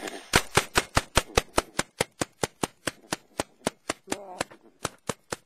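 Rapid, evenly spaced gunshot cracks, about five a second for some four seconds, then a few single shots further apart near the end.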